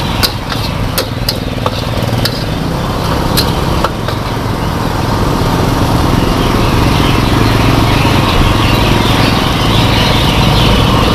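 Metal spatula clanking and scraping in a steel wok as fried noodles are stir-fried over a gas burner, with a sizzle building about halfway through. Under it runs a loud, steady low mechanical drone.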